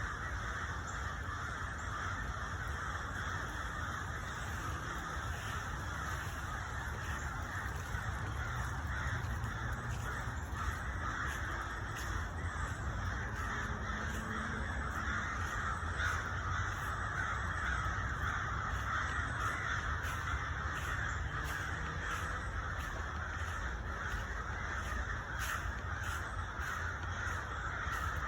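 A large flock of birds calling all at once, a dense unbroken chorus that holds steady throughout.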